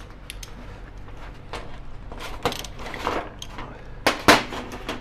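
Metal clicks, scrapes and knocks as a motorcycle chain breaker tool is handled and repositioned on the chain, with a couple of sharper clacks about four seconds in.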